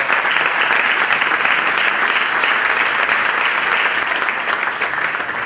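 Audience applauding, dense steady clapping from a seated crowd.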